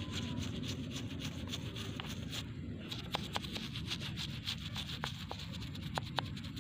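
A toothbrush scrubbing the bark of a bonsai stock in quick back-and-forth strokes, with a short pause about two and a half seconds in, over a low steady rumble.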